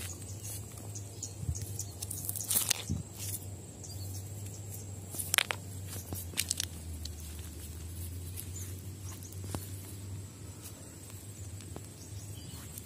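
Scattered crunches and clicks of footsteps on loose gravel and pebbles, the loudest a few seconds in, over a steady low rumble.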